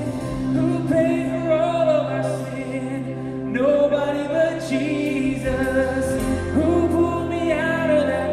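Contemporary worship band playing live: several voices singing together over bass, drums, guitars and keys, recorded from the room with its natural reverberation.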